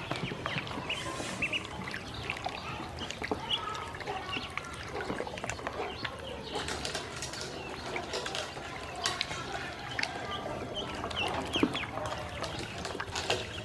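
A group of yellow ducklings peeping over and over in short high calls while they paddle and splash in a basin of water, with occasional sharper splashes.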